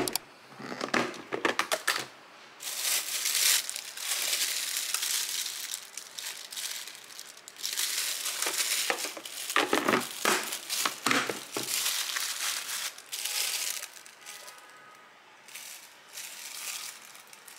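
Thin plastic bags crinkling and rustling as they are handled and lifted out of a plastic food storage container, with a few sharp clicks from the container's snap-lock lid near the start.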